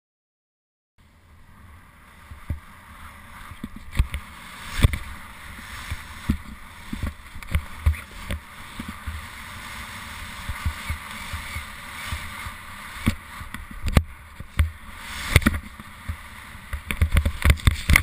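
Skis hissing through snow and wind rushing over a helmet camera's microphone, with frequent low thumps as the skis bounce over the snow. Near the end the noise grows loud and rough as the skier crashes into deep powder, snow spraying over the camera.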